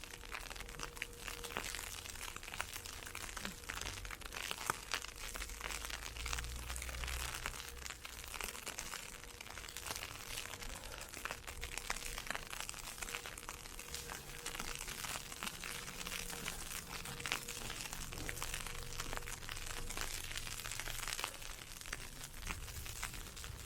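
Steady crunching and crackling of footsteps through heavy snow and ice pellets, with a dense, irregular patter of tiny ticks.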